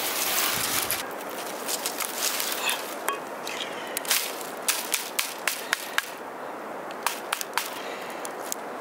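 Bamboo strips being worked by hand in basket weaving: a brief rustle at first, then sharp, irregular clicks and snaps of the bamboo, coming a few times a second from about halfway through.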